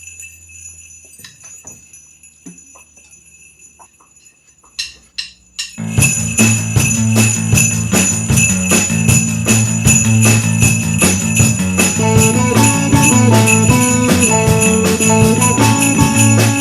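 Sleigh bells jingling faintly, then shaken loudly a few times about five seconds in. About six seconds in, band music starts, with the sleigh bells shaken continuously and loudly over it.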